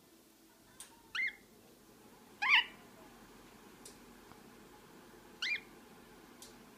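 Lineolated parakeet giving three short chirps that each sweep up in pitch, the middle one the loudest, with a few faint clicks between them.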